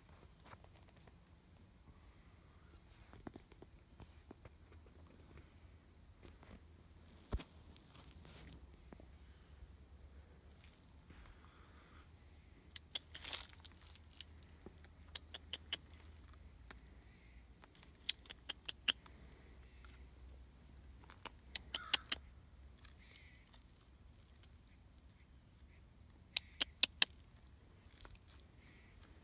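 Faint, steady high-pitched insect chirring, with scattered sharp clicks and ticks that come now and then in small clusters.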